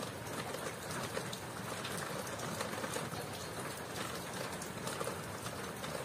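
Steady rain falling, with many small scattered drop ticks over an even hiss.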